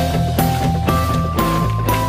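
Background music with a steady beat of about two strokes a second, a strong bass and a held melody line that steps up in pitch.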